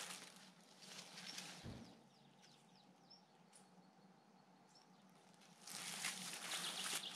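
Quiet pine-forest ambience with a few faint, short bird chirps. About six seconds in, footsteps on the forest path start up and become the loudest sound.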